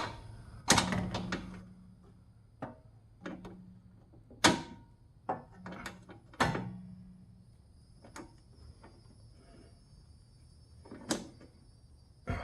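Scattered sharp knocks and clanks of metal tools and parts being handled, a few seconds apart, some with a short ring.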